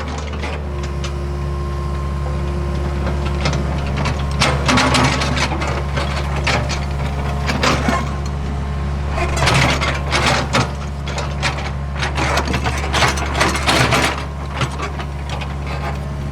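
Hitachi ZAXIS75UR excavator's diesel engine running steadily under working load, with several bursts of clattering and scraping as it works the ground.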